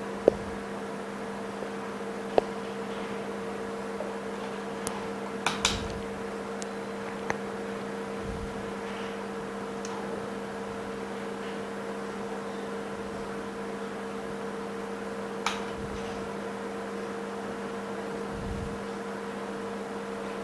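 Steady electrical hum and hiss from running equipment, with a few faint light clicks and taps as the phone is handled.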